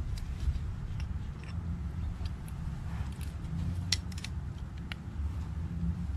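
Light metallic clicks and taps of a carburetor float bowl and its nut being handled and threaded together by hand, over a steady low rumble. A quick cluster of clicks comes about four seconds in.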